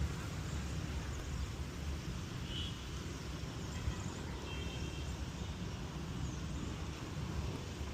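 Outdoor ambience: a steady low rumble under an even background hiss, with two brief, faint high chirps in the middle.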